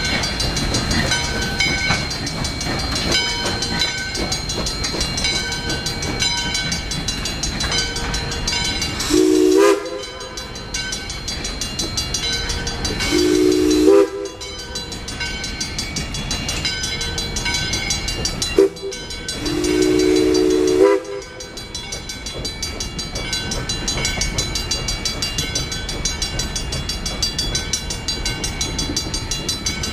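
Steam locomotive's chime whistle blowing four blasts, the third very short and the last the longest, while passenger coaches roll past with a clickety-clack over the rails. A grade-crossing bell rings steadily about once a second underneath.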